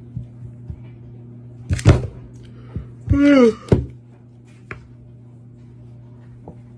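A few scattered knocks and a loud thump about two seconds in, then a brief voiced exclamation that falls in pitch about three seconds in, followed by another knock, over a steady low electrical hum.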